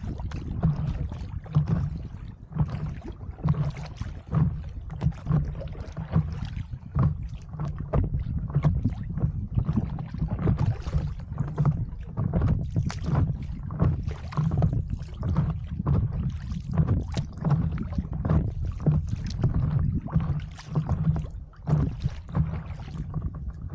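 Water slapping and splashing against the nose of a stand-up paddleboard as it moves through small ripples, in irregular short splashes, with a constant low rumble of wind on the microphone.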